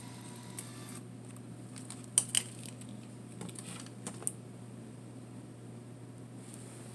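Olympus Camedia C-4040Z digital camera on a failing low battery: a short mechanical whir until about a second in, then several sharp clicks from the camera as it is handled, the loudest two about two seconds in and two more about four seconds in.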